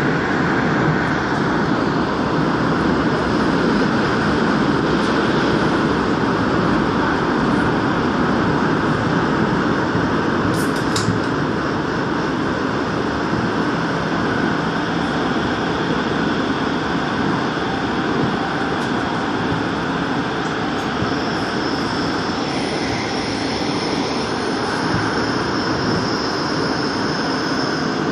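Daegu Metro Line 2 subway train running through a tunnel, heard from inside the train: a steady rumble of wheels on rail, with a thin high whine joining about three quarters of the way in.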